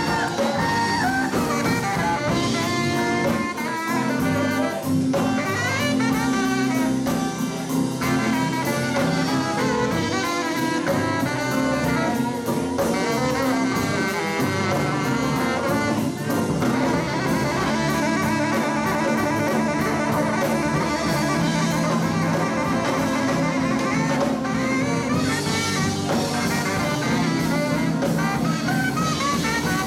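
Live band playing an instrumental passage: saxophone over electric guitar, bass, keyboard and drum kit, with a steady beat.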